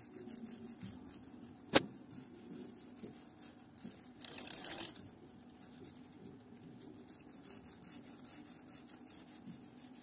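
Faint rubbing of an oiled cloth along a bicycle chain as it is lubricated, with a sharp click just under two seconds in and a brief hiss around four seconds in.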